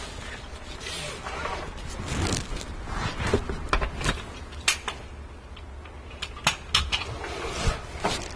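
Seat belt being pulled across and buckled in a fire engine's captain seat: rustling of the webbing and clothing, then a string of sharp clicks and knocks as the belt's latch plate goes into the buckle, over a low steady hum.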